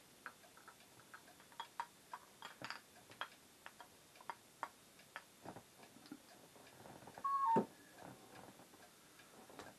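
Scattered light clicks and taps from a small handheld torch being switched and handled against a pint glass, with a louder brief squeak about seven seconds in.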